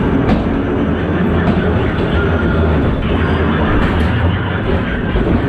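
Ghost train car running along its track: a steady low rumble of wheels on rail, with a few faint clicks.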